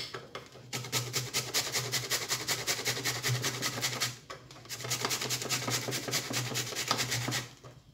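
Half a cucumber, skin on, being rubbed back and forth on the fine side of a metal grater: quick, even rasping strokes, with a short pause about four seconds in and another near the end.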